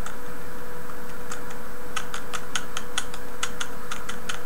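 Computer keyboard keys tapped repeatedly: a few separate clicks at first, then a quick run of about five presses a second from about halfway. A steady hum runs underneath.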